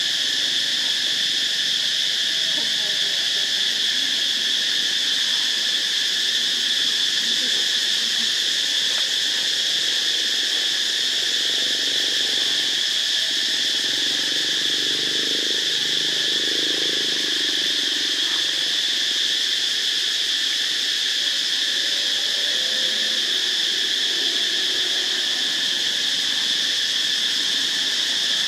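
Insect chorus, a steady high drone that never varies in loudness.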